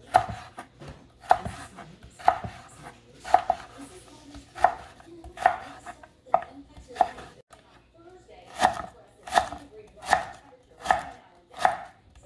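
Chef's knife slicing through firm raw vegetable and knocking on a wooden cutting board, one slow, deliberate cut about every second while julienning into thin strips, with a brief pause a little past the middle.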